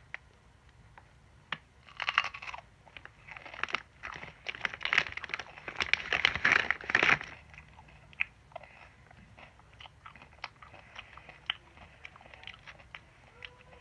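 Crunchy biting and chewing of a raw jalapeño pepper and Takis rolled tortilla chips, in bursts of crunching that peak around the middle, then fading to soft, scattered clicking chews.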